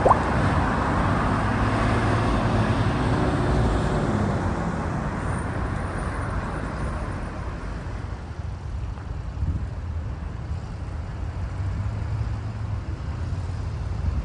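Traffic on a busy main road: a large vehicle passes, loudest in the first four seconds, then the traffic settles to a steady rumble.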